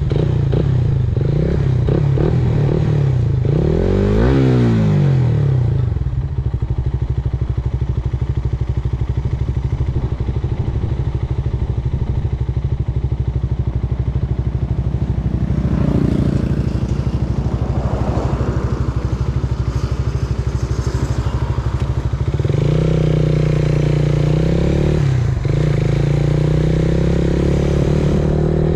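Suzuki Raider Fi motorcycle's single-cylinder engine running on an Aracer aftermarket ECU being street-tuned. The revs rise and fall briefly about four seconds in and shift again around sixteen seconds. Near the end they climb to a higher steady pitch, with one short dip.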